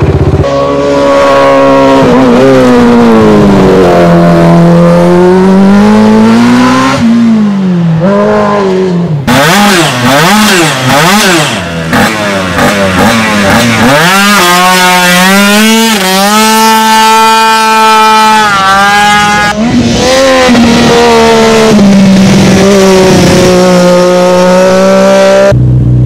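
Racing engines revved hard while standing still, one after another. First a Suzuki 450 quad's single-cylinder engine swells and falls. Then a racing Piaggio Zip scooter's small engine is blipped in quick bursts and held at high revs.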